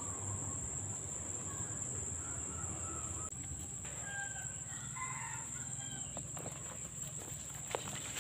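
A rooster crowing about halfway through, over a steady high-pitched insect drone, with a couple of sharp clicks near the end.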